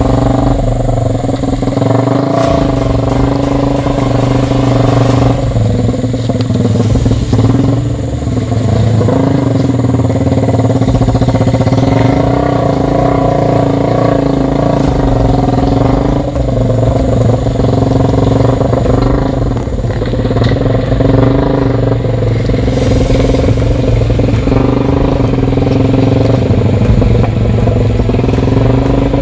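Three-wheeled motorcycle with a Yamaha MX engine running steadily, its level and pitch wavering only slightly.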